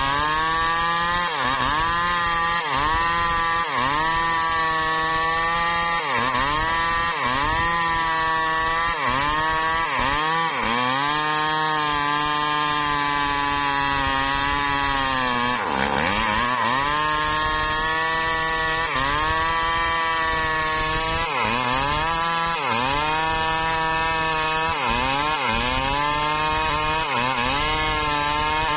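Stihl two-stroke chainsaw cutting into a thick hardwood trunk under heavy load. The engine pitch sags and recovers about once a second as the bar is worked through the cut, holds steadier and lower for a few seconds in the middle, and bogs down deeply just past halfway before picking up again.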